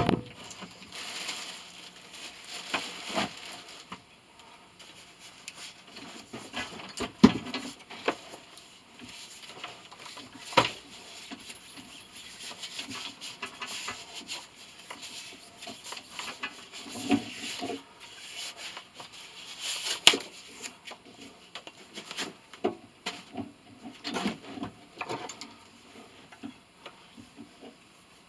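Scattered workshop handling noises from a motor being taken apart: rubbing and rustling, with irregular clinks and several sharp knocks, the loudest about seven, ten and twenty seconds in.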